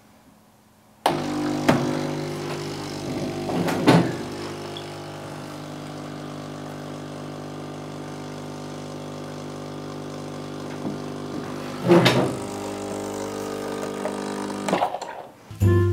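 Solis Barista Perfetta Plus espresso machine's pump humming steadily while pulling a shot. It starts suddenly about a second in, a little louder at first, with a few sharp knocks along the way, and cuts off near the end when the shot is stopped.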